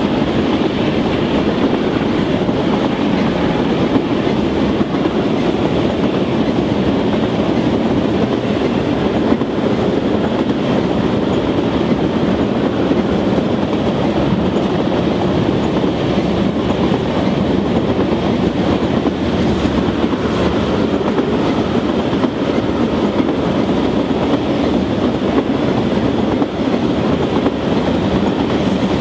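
Loaded crude-oil tank cars of a freight train rolling steadily past, the steel wheels running over the rail joints in a continuous clickety-clack.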